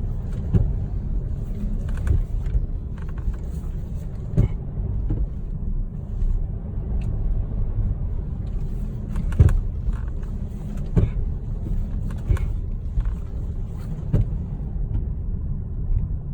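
Mercedes-Benz W212 E-Class facelift on the move, a steady low road rumble broken by sharp knocks at irregular intervals, some seconds apart. The knocks come from around the right front wheel: a suspension knock, the fault being chased.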